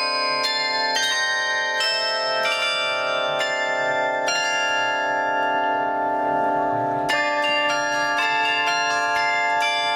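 Travelling carillon of bronze bells played from a baton keyboard: quick struck bell notes ringing over one another, a held stretch about four seconds in where the bells ring on with few new strikes, then quick notes again about seven seconds in.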